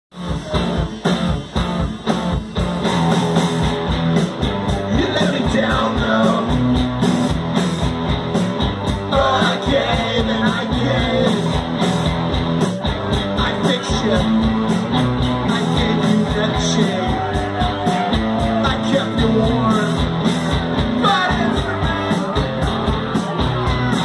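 Live rock band playing a song: a lead vocal sung over electric guitar and a steady beat, loud and continuous.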